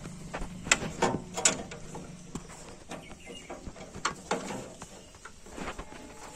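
Irregular metallic clicks and clunks of a power tiller's gear-shift lever and a steel rod being worked in the gear-change gate, the loudest a quick cluster about a second in and two more knocks about four seconds in.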